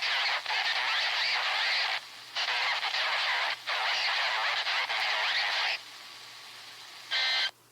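Radio static hiss in long stretches with short breaks. Near the end comes a brief burst of Emergency Alert System digital data tones.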